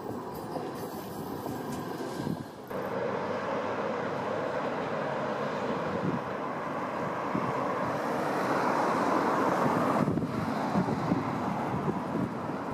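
Manchester Metrolink M5000 tram running past close by for the first couple of seconds. After a cut, a steady rushing noise with wind buffeting the microphone slowly grows louder as a distant tram approaches over a bridge.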